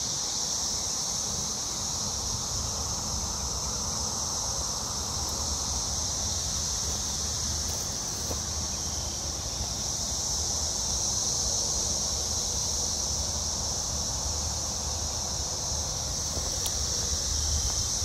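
Steady high-pitched chorus of 17-year periodical cicadas buzzing in the trees, swelling slightly, with low wind rumble on the microphone.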